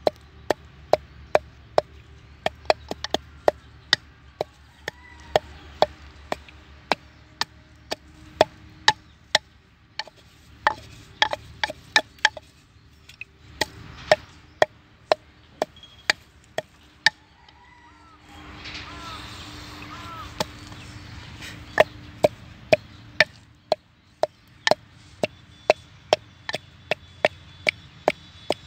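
Wooden pestle pounding dried red chili in a mortar: sharp knocks at about two a second, pausing briefly about two-thirds through.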